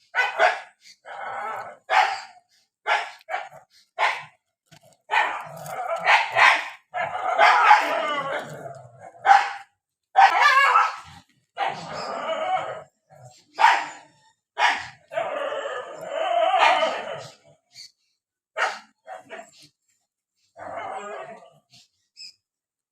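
Several dogs barking in short, irregular barks, broken by longer, denser stretches of sound about five, ten and fifteen seconds in.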